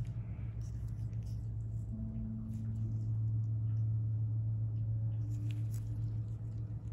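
A steady low hum, with a few faint soft ticks and rustles above it.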